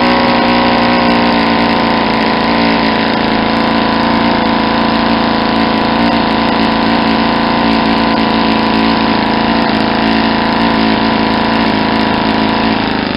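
Saito 50 four-stroke single-cylinder glow engine spinning an 11x7 propeller, running steadily with its needle set incredibly rich, as is usual for the first tank while a new piston ring runs in.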